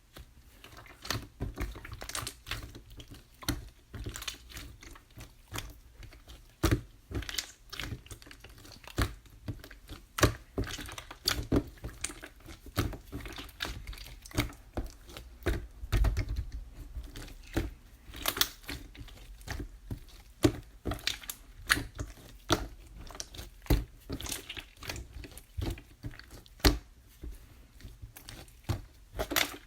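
Clay slime being squished, stretched and pressed by hand, giving irregular sticky clicks and pops, several a second.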